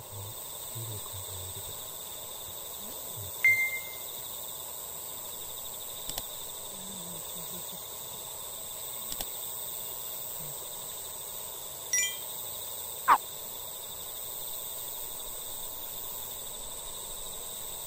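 Dusk outdoor ambience: a steady insect chorus with a few short chirps and calls over it, the loudest a quick falling call about thirteen seconds in.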